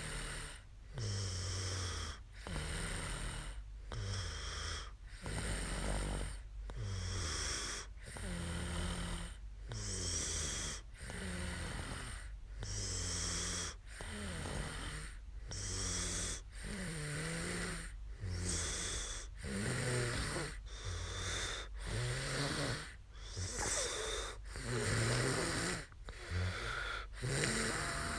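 A woman snoring in her sleep: a steady, even run of snores with short pauses between them.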